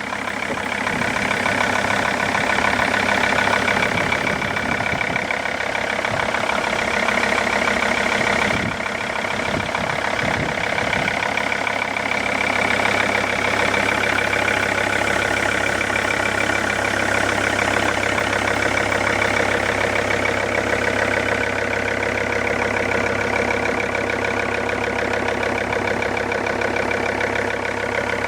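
Mercedes-Benz W211 E-Class engine idling steadily with a knock, the fault the owner is recording.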